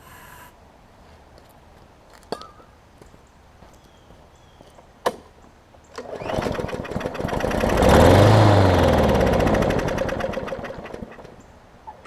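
MTD push mower's small engine pull-started: it catches and runs for a few seconds, revving up and then winding down and dying. It will not keep running, which the repairer puts down to a carburetor gummed up by old fuel that needs cleaning. A few sharp clicks come before it.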